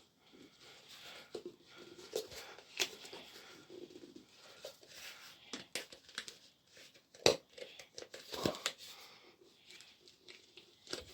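Rustling and crinkling with scattered sharp clicks and knocks, the loudest about seven seconds in: parts and packaging being handled while a toilet is fitted.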